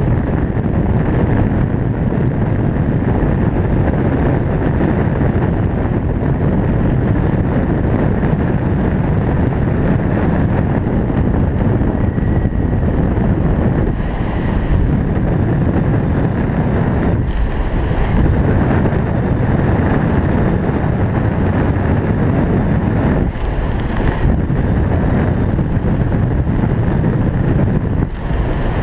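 Loud, steady wind rushing over a skydiver's helmet-mounted camera microphone, swelling briefly a few times.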